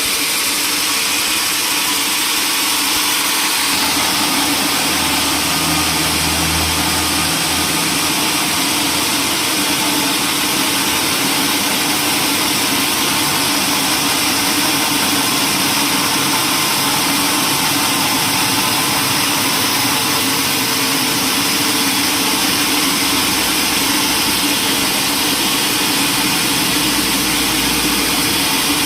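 Sawmill machinery running steadily, a loud continuous mechanical noise, with a deeper hum joining a few seconds in and again near the end.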